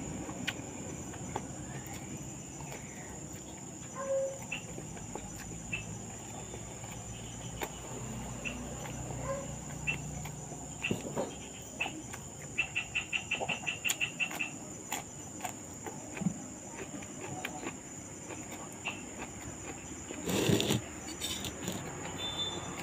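Small wet clicks and smacks of a man chewing and eating with his fingers from a plate. An insect chirps in short rapid trills in the background. There is a brief louder noise about twenty seconds in.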